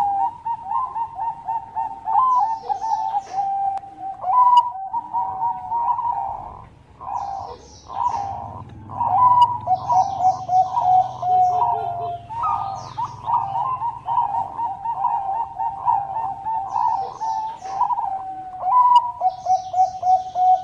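Bangkok-type zebra dove (perkutut) cooing almost without pause: rolling, trilled coo phrases that often fall in pitch at the end. Brief high chirps break in now and then.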